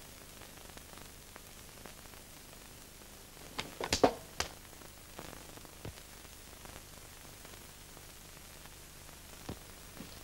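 Steady hiss of an old film soundtrack, with a brief cluster of sharp sounds about four seconds in and a few faint clicks afterwards.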